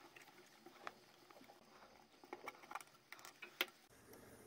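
Faint, scattered clicks and taps of a 3D-printed plastic case being handled as its back cover is fitted and screwed on, with one sharper click near the end.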